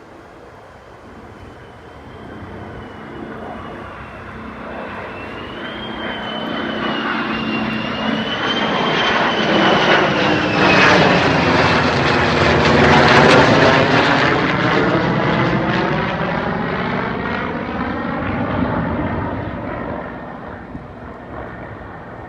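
An airplane flying past, its engine sound building to a peak a little past halfway and then fading away, with a high whine wavering above it as it approaches.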